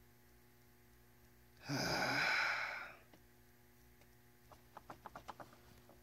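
A man's long, heavy sigh of exasperation, followed a couple of seconds later by a run of light clicks from handling parts.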